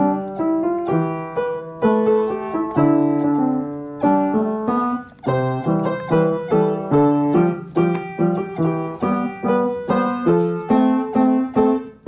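Background piano music, a steady run of struck notes and chords, with a brief break about five seconds in.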